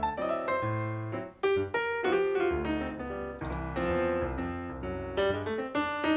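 Background piano music: a light melody of quick notes over bass notes.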